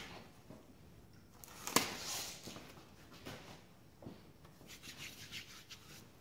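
Handling noises of hands working in an engine bay: faint rubbing and rustling, with one sharp click about two seconds in and a few small clicks and rustles near the end.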